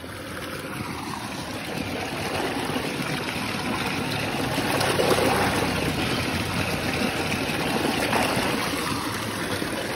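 Water pouring and splashing steadily from a tubewell outlet, growing louder over the first couple of seconds.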